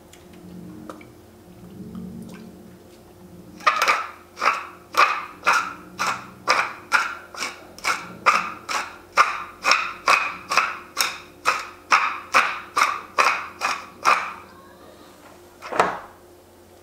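Hand pepper mill grinding black pepper over a pan of pasta: a run of about twenty short, crunchy rasps, roughly two a second, each one a twist of the mill. A single sharper knock follows near the end.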